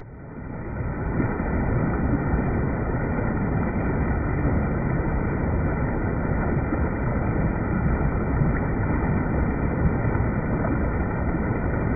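Steady rush of a waterfall's falling water, a constant low noise without rhythm that swells up over the first second.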